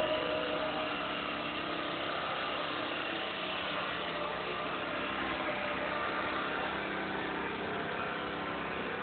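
Steady murmur of a large crowd walking in the street, over a low steady hum.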